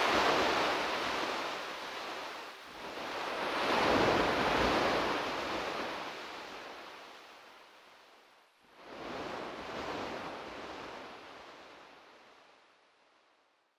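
Ocean surf sound: a rushing wash of noise that swells and recedes three times like breaking waves, dying away about three-quarters of the way in.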